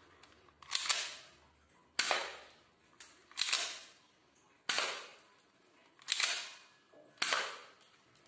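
Airsoft pistol firing six single shots a little over a second apart, each a sharp snap that dies away in a short room echo.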